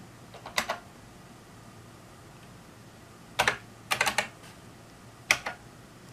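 Computer keyboard keys being typed in short clusters, entering a number: a couple of keystrokes about half a second in, a quick run of several around the middle, and another pair near the end.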